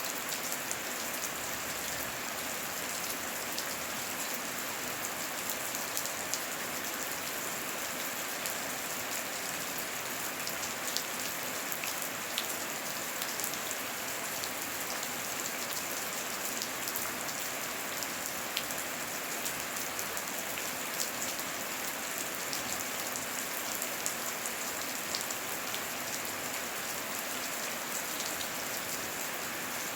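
Steady heavy rain falling, a constant hiss dotted with the sharp ticks of individual drops striking surfaces.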